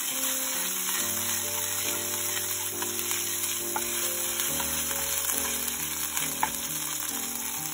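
Olive oil with garlic, aonori and yuzu kosho sizzling in a frying pan while it is stirred with a wooden spoon, with a few light clicks. Soft background music plays along with it.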